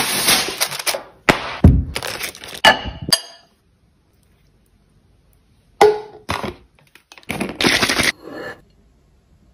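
Food-preparation sounds in short, loud bursts: crunching and cracking noises for about three seconds, a near-silent gap, then another run of crunching and squeezing sounds.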